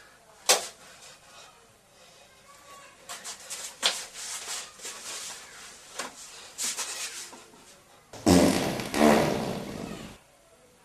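A click about half a second in, then a few seconds of scattered rustling and scraping. Near the end comes a loud, pulsing fart about two seconds long from a man sitting down on the toilet.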